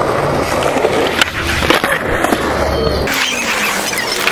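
Skateboard wheels rolling over rough concrete, a steady grinding rumble, broken by several sharp clacks of the board and trucks.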